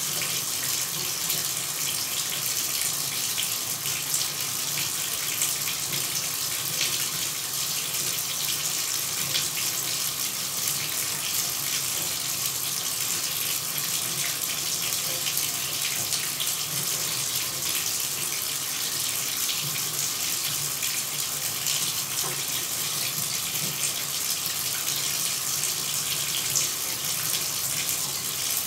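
Shower running: a steady, unbroken hiss of water spray, strongest in the high range, with no let-up or change.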